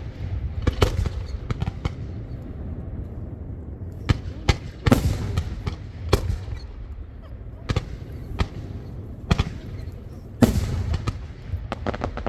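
Fireworks going off: a series of sharp bangs at irregular intervals over a low rumble, the loudest about five seconds in and again about ten seconds in.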